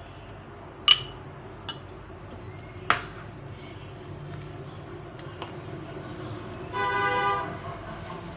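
A metal spoon clinking sharply against a bowl a few times while stirring, the loudest clinks about one and three seconds in. About seven seconds in, a short horn toot lasting under a second.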